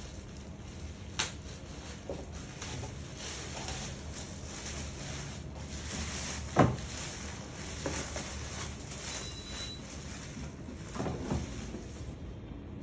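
A plastic bag rustling as a patient monitor is slid out of it and handled, with scattered knocks and clicks, the loudest about six and a half seconds in and a few more near the end as the unit is stood on a glass-topped desk.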